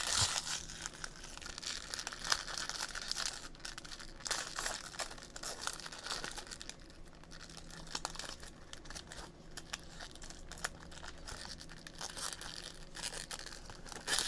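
Trading-card box and pack wrappers being torn open and crinkled by hand: irregular rustling, crackling and tearing.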